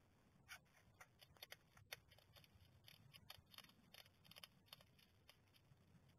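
Hedgehog eating dry pellet food from a plastic dish: a faint, fast, irregular run of crisp crunches and clicks starting about half a second in.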